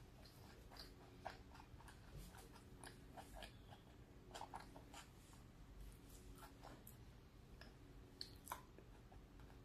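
Faint chewing of a mouthful of cheeseburger: soft, irregular wet mouth clicks and smacks, over a faint low hum.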